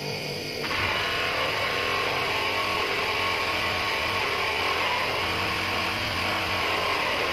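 Bench polishing motor running with its buffing wheel pressed against a steel shotgun barrel: a steady hiss over a low motor hum, starting abruptly under a second in.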